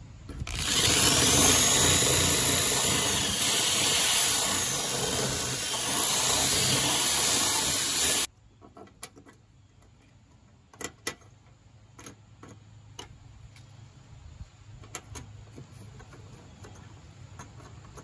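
Power drill with a twist bit boring through a plastic bumper mounting bracket, running for about eight seconds and then stopping abruptly. It is followed by faint clicks and knocks.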